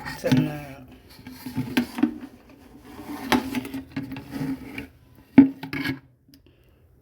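Kitchen utensils scraping and rubbing against a dish, with several sharp knocks, the loudest about three and five seconds in; it stops about six seconds in.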